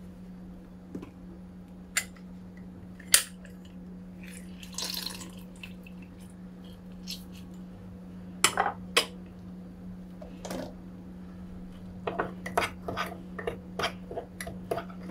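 Kitchen handling sounds: scattered clicks and knocks as a hand-press lemon squeezer and a ceramic mug are handled and set down, then from about twelve seconds in a quick run of small taps and clinks as a lemon-and-spice paste is mixed in the mug by hand. A steady low hum sits underneath.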